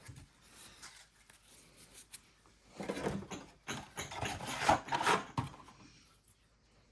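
Trading cards being slid and flipped through by hand, a dry rubbing and rustling with small clicks, busiest between about three and five and a half seconds in.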